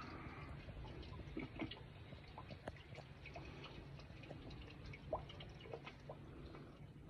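Faint, irregular dripping of water, a scatter of small ticks and drips over a low steady hum.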